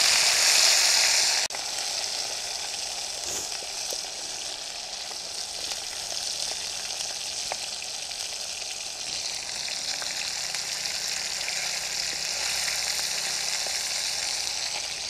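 Masala-marinated carp pieces sizzling as they fry in hot oil. The hiss is loudest for about the first second and a half, then drops suddenly to a quieter, steady frying sizzle with a few faint clicks.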